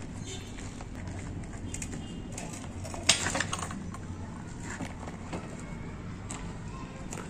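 Clicks and one sharp knock about three seconds in as someone handles a parked motorcycle, over a low steady hum.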